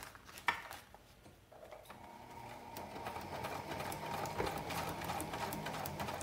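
A sharp click about half a second in, then an electric domestic sewing machine starts stitching about two seconds in and runs steadily, sewing a seam through Cuben fiber fabric.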